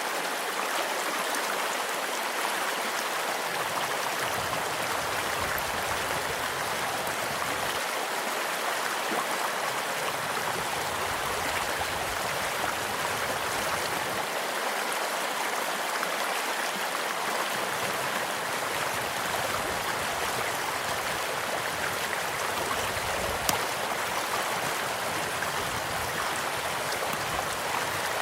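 Small stream flowing steadily, with a single sharp pop from a crackling campfire about three-quarters of the way through.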